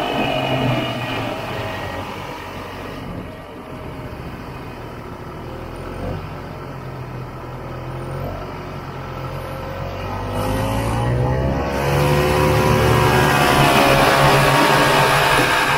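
Two-stroke engine of a 1967 Ski-Doo Olympic snowmobile running under way; it eases off to a lower, quieter note for several seconds, then revs up about ten seconds in and holds a higher, louder speed.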